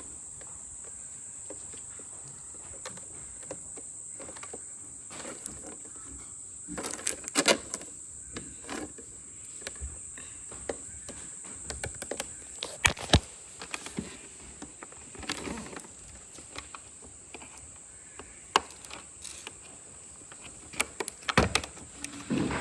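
Protective plastic film being peeled and crinkled off a new robot vacuum, with scattered clicks and knocks of handling; the busiest crinkling comes in bursts about a third of the way in, a little past halfway and near the end. A steady high-pitched tone runs underneath throughout.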